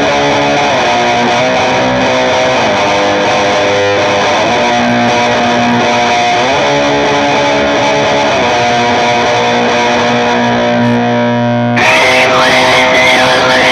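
Music: distorted electric guitar playing sustained chords that change every second or so, turning brighter and slightly louder about twelve seconds in.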